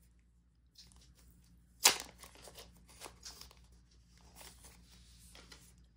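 Hands rustling and opening a small grey card packet: one sharp crinkle about two seconds in, then light rustling and ticking of the packet being handled.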